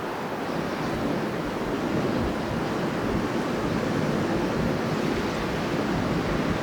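Strong wind blowing steadily: a dense rushing noise with a low, gusty rumble beneath it.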